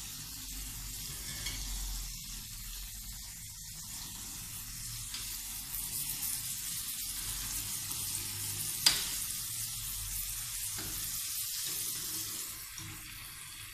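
Tomato slices sizzling steadily in a hinged wire grill basket over a gas burner, with one sharp click about nine seconds in.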